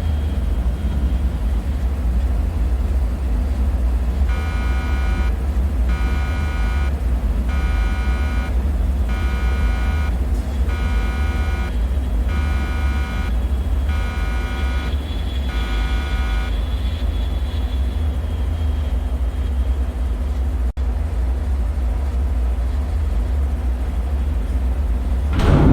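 Deep, steady rumbling drone of a bunker ambience. For about twelve seconds an alarm buzzer pulses roughly once a second, then stops. A sudden loud hit with a falling, ringing tail comes right at the end.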